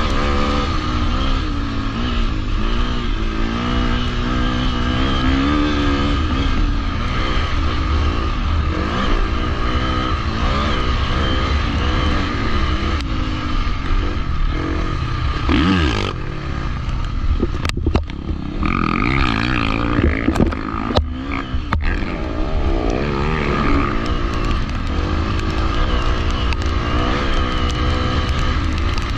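A 250 cc four-stroke motocross bike's engine, heard from on board, revving up and falling back again and again as it is ridden round a dirt track, under steady wind noise on the microphone. A handful of sharp knocks come a little past the middle.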